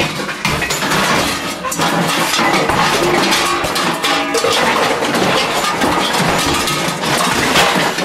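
Analog modular synthesizer putting out a dense, noisy, flickering texture with a few short steady tones.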